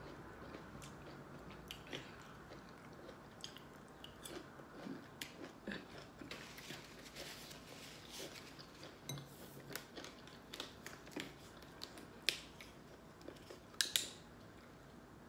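Faint chewing and small wet mouth clicks of a person eating asparagus, irregular throughout. Near the end come a few sharper crackles as a plastic water bottle's cap is twisted open.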